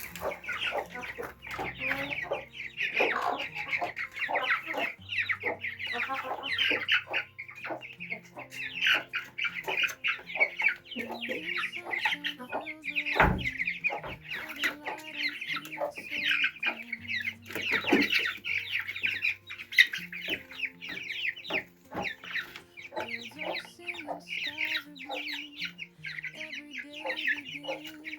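A brood of chicks peeping continuously in many rapid high chirps, with soft background music underneath. A sharp knock about halfway through, and another a few seconds later.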